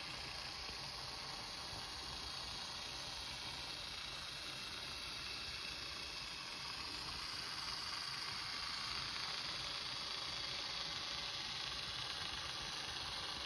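Märklin Z-scale model locomotive running on its track: a steady, faint whirring hiss from its small motor and wheels, growing a little louder in the second half as it passes close by.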